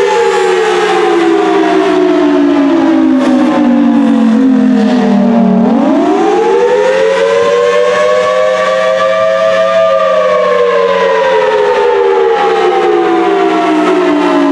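Federal Signal Thunderbolt 1000T tornado siren sounding loudly in a test, two tones together. The pitch glides down for the first five or so seconds, sweeps back up and levels off, then falls again near the end.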